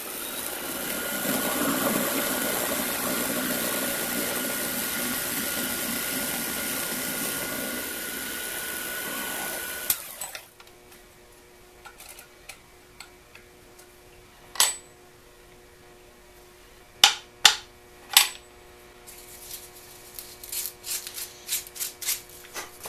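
Small lathe running with a steady whine while a twist drill in the tailstock bores a 1/4 inch hole into a wooden ball held in the three-jaw chuck; the motor stops suddenly about ten seconds in. After that come a few sharp clicks and knocks as the chuck is opened by hand and the ball taken out.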